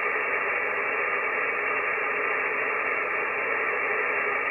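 Icom IC-7300 HF transceiver's speaker hissing steadily with 40-meter band noise on single sideband, with no station transmitting. The hiss is thin and cut off sharply above the voice range by the receiver's sideband filter.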